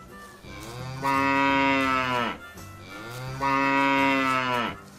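A cow mooing twice, two long calls of about two seconds each. Each call rises in pitch at the start, holds steady, and drops off at the end.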